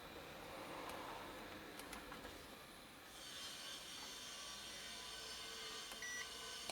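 Quiet room tone: a faint steady hiss with a few light clicks, and a very short faint beep near the end.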